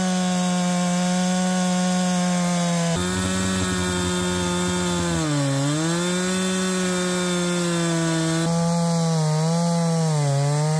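Chainsaw mill running at full throttle, ripping a hard beech log lengthwise. The engine note holds steady, then sags in pitch briefly about halfway through and twice more near the end as the chain bogs down in the tough wood.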